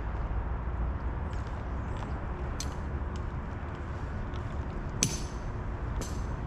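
A steady low rumble with several light metallic clinks, the sharpest about five and six seconds in.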